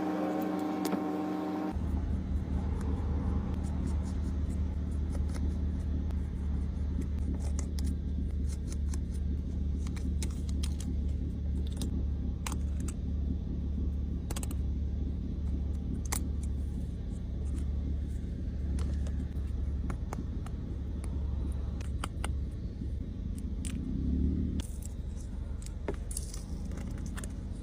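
Steady low rumble, like an idling vehicle engine, with scattered small clicks and taps throughout.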